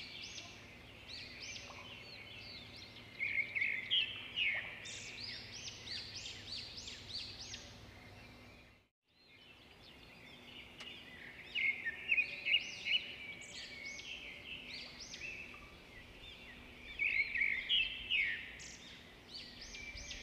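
Birds chirping in a dense chorus of quick, high chirps, with louder clusters of chirping several times. About halfway through, the sound cuts out completely for a moment and then resumes.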